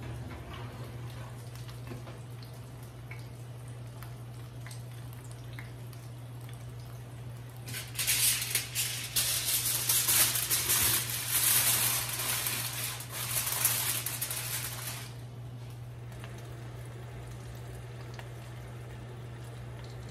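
Sheet of aluminium foil crinkling and rustling for about seven seconds as it is pressed and tented over a roasting turkey, starting about eight seconds in. A steady low hum sits underneath throughout.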